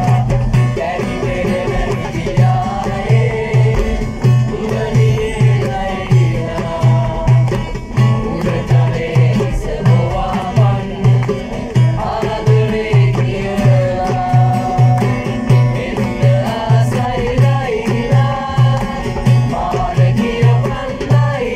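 Folk-style music with a steady low drum beat, about two beats a second, and a melody over it.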